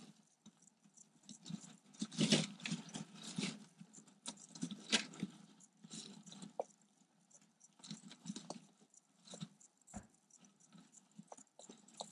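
Bark-chip substrate rustling and clicking in irregular bursts as a toad held by a garter snake scrabbles and kicks, loudest about two and five seconds in.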